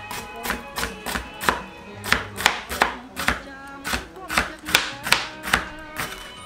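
Chef's knife slicing bitter melon against a cutting board, a steady run of sharp cuts a little over two a second, over background music.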